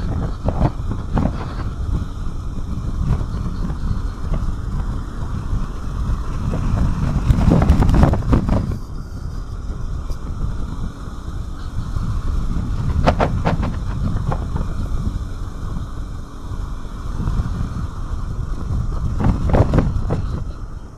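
Wind rushing over the camera microphone while riding a 2019 Yamaha Xmax 300 maxi scooter, with the scooter's single-cylinder engine and tyre noise underneath. The wind swells louder about a third of the way in, near the middle and again near the end.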